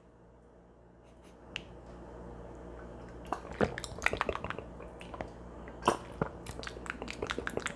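A man drinking water from a glass. It is almost quiet at first, then from about three seconds in comes a run of gulps and wet swallowing clicks.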